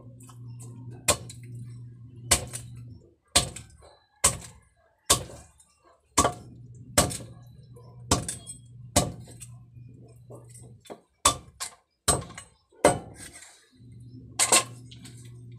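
Large knife chopping pieces of grouper on a wooden chopping block: about a dozen sharp chops, roughly one a second, with a pause of about two seconds past the middle.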